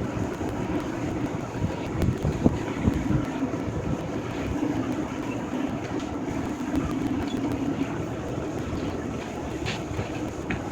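Demolition machinery running steadily, with a few knocks about two to three seconds in, and wind on the microphone.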